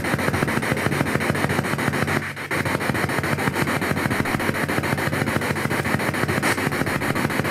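Spirit box (ghost box) radio sweeping through stations: continuous loud static chopped into rapid, even pulses, with a brief dropout about two seconds in.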